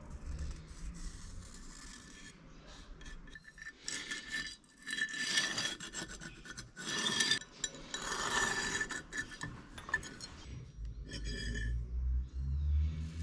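A file rasping back and forth on the steel of a knife blank in uneven strokes, loudest in the middle stretch.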